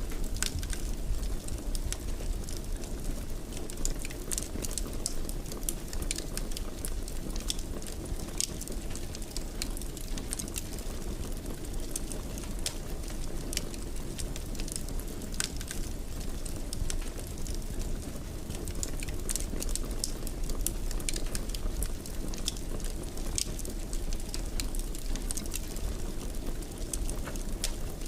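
Wood fire in a fireplace crackling, with frequent small sharp pops and snaps over a steady low rumble of the flames.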